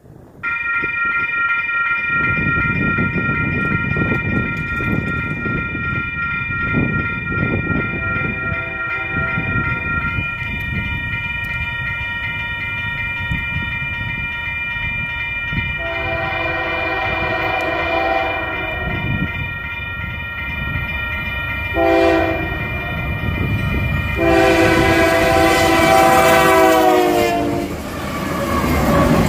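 Grade-crossing bell starts ringing as the signals activate, then an approaching Union Pacific freight's horn, led by a GE AC4400CW, sounds the crossing signal: two long blasts, a short one and a final long one whose pitch drops near its end as the locomotives pass. The train's rumble rises as it reaches the crossing.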